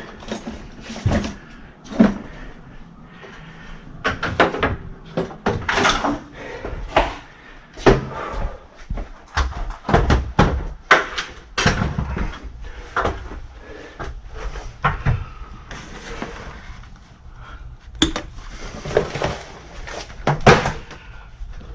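Irregular knocks, clicks and clatters of hand tools and parts being handled.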